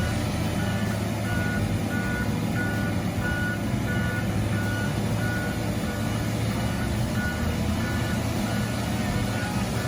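Heavy diesel logging machine running under load, its reversing alarm beeping steadily at about one and a half beeps a second over the low engine rumble.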